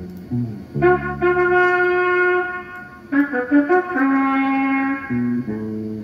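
Instrumental introduction of a slow ballad played back from cassette tape. A wind instrument holds long melody notes over a bass line that changes note every half second or so.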